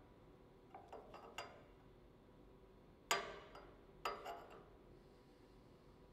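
Metal parts being handled on a steel fixture table: a cluster of light clinks about a second in, then two sharper metallic knocks about three and four seconds in, each with a short ring.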